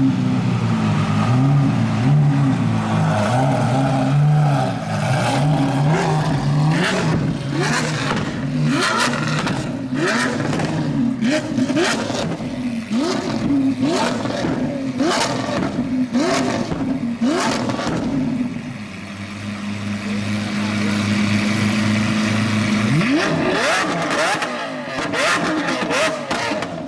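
Lamborghini Aventador SVJ's V12 revved hard in quick repeated blips, with sharp cracks between them. About two-thirds through it drops to a steady idle, then revs once more near the end with another burst of sharp cracks.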